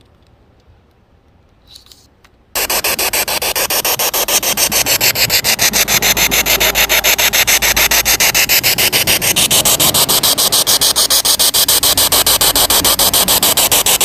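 P-SB7T Spirit Box radio switched on about two and a half seconds in, sweeping through stations: loud hissing static chopped into rapid even pulses.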